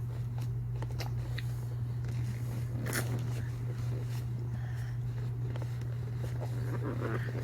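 A steady low hum throughout, with a few scattered soft clicks and rustles.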